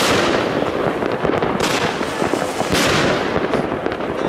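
Consumer firework battery (cake) firing aerial shells: dense continuous crackling, with a sharper, louder burst about every one and a half seconds, three in all.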